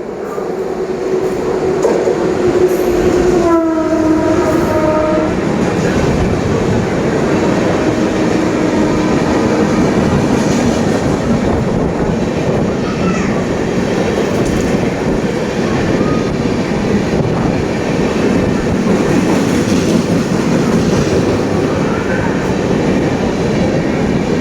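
Express train passing through a station at high speed: its locomotive horn sounds and drops in pitch as it goes by, then the coaches rush past with a steady rumble and wheel clatter.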